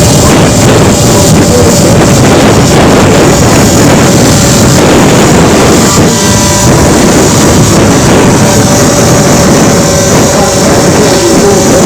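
Heavy wind buffeting the camera's internal microphone, loud and continuous, over the steady whine of an RC scale model helicopter's motor and rotors.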